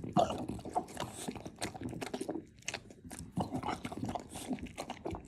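A pet chewing and crunching its food in quick, irregular bites.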